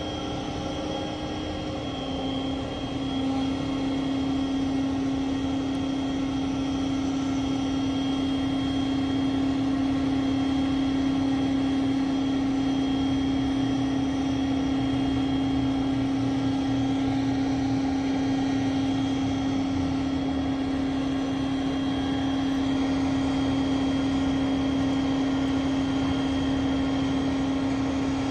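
Mobile truck crane's engine and hydraulics running steadily while lifting a rooftop air-conditioning unit, a continuous drone with a strong steady tone that drops slightly in pitch about two seconds in.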